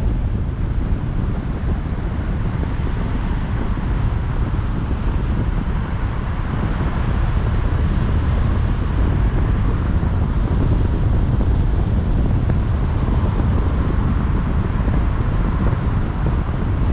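Steady wind rumble on the microphone of a GoPro Hero 7 action camera on a moving car, mixed with the car's road noise, growing slightly louder about a third of the way in.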